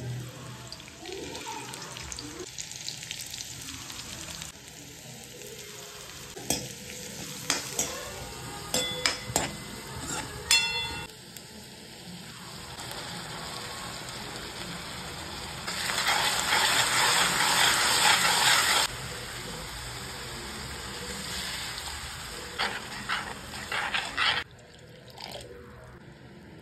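Food frying in oil in a metal wok, with a steady sizzle as chopped garlic, ginger and vegetables cook. A metal spoon clinks and scrapes against the wok in quick runs of knocks. For about three seconds past the middle the sizzle turns much louder and harsher.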